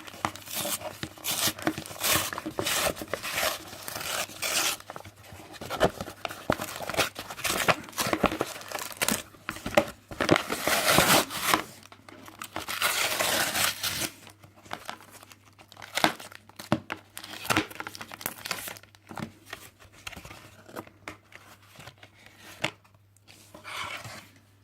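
Pokémon card booster packaging torn open and crinkled by hand: a triple booster pack's plastic and foil wrappers. Dense tearing and crinkling for roughly the first half, then scattered rustles and clicks as the contents are handled.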